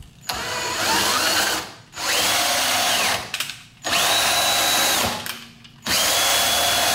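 Cordless drill spinning a PM-727M mill's X-axis ballscrew to drive the table, a test of the new ballscrew assembly for binding. The drill runs in four short bursts, its whine rising in pitch as it speeds up and dropping as it stops each time.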